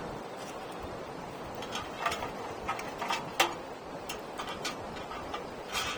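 Wood campfire crackling, with irregular sharp pops over a steady low hiss, the loudest pop about three and a half seconds in.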